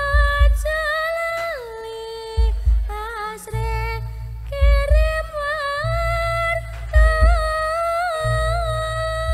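Live Javanese music accompanying a barong dance: a single high melody line with sliding ornaments over heavy bass drum beats.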